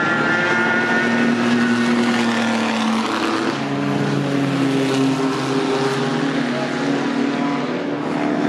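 Engines of several pre-1935 Grand Prix racing cars running hard as they pass, several engine notes overlapping. The notes change about three seconds in as the cars go by.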